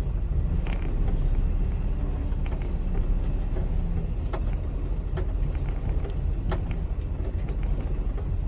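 Mercedes Actros truck's diesel engine running as a steady low rumble, heard from inside the cab while the truck moves slowly, with occasional faint knocks and creaks.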